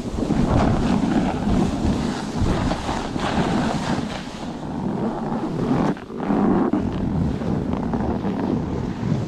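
Wind buffeting an action camera's microphone during a snowboard run, with the board scraping over the snow; the rush swells and eases, dropping briefly about six seconds in.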